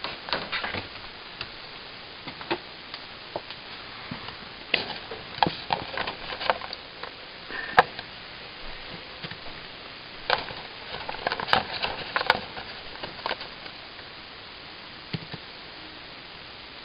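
Irregular crunches, clicks and rustles of guinea pigs eating vegetable treats and moving about in wood-shaving bedding, clustered in two busier spells.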